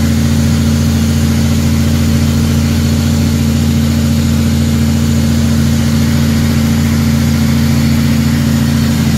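Heavy truck's diesel engine running steadily at cruising speed, heard from inside the cab. The drone holds one even pitch throughout.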